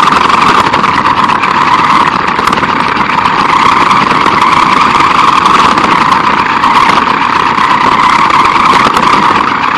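A small RC car's motor, gears and tyres whirring steadily and loudly as it drives over concrete, heard up close from on board the car.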